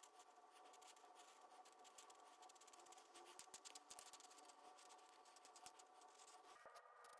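Quiet, quick scratchy strokes of coloring on paper, several a second.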